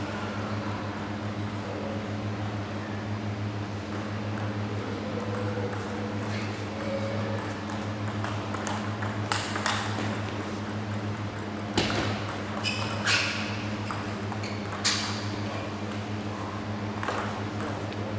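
Celluloid-type table tennis ball clicking off the bats and the table during a rally, sharp knocks every half second to a second through the second half. A steady low hum runs underneath.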